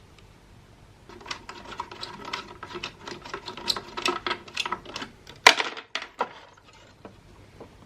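Rapid, irregular clicking and rattling of a screwdriver and small parts as an electronic device's casing is taken apart, several clicks a second. A single sharp clack comes about five and a half seconds in, followed by a few scattered clicks.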